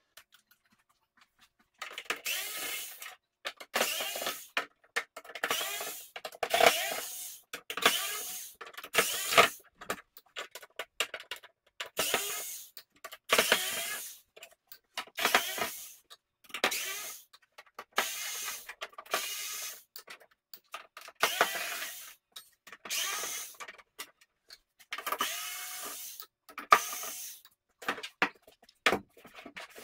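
Cordless electric screwdriver running in short bursts, about one every one and a half to two seconds, backing screws out of a TV's plastic rear cover.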